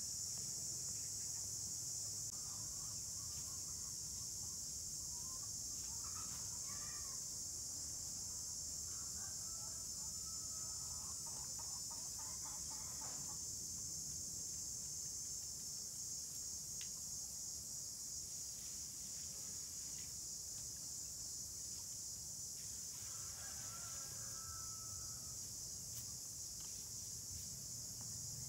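Chickens clucking in a few short bouts, with a longer run of quick clucks around the middle, over a steady high-pitched drone of insects.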